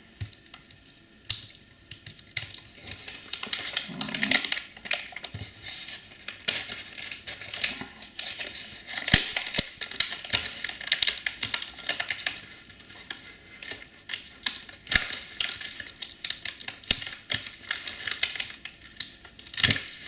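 Metallised anti-static bag crinkling and rustling in irregular bursts as a CPU card is handled and worked out of it, getting busier and louder partway through.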